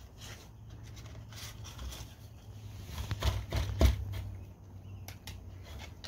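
A Belgian Sheepdog nosing crumpled paper balls out of the cups of a metal muffin tin to get at treats: paper rustling, with a cluster of knocks and clatters against the tin about three to four seconds in.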